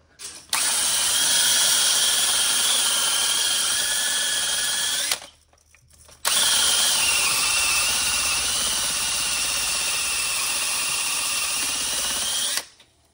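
Cordless drill spinning a wire brush against the engine block, scrubbing old JB Weld off to find bare metal. It runs in two long bursts with a short pause between, a steady high whine over a scratchy hiss, and the pitch sags slightly under load in the second burst.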